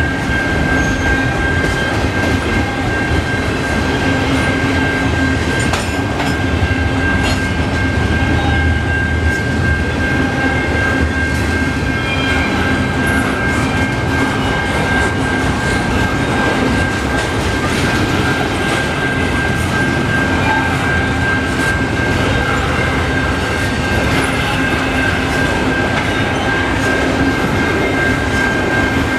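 Freight train of double-stack intermodal well cars rolling slowly past: a steady rumble of steel wheels on rail with some clickety-clack, and a steady high-pitched tone over it.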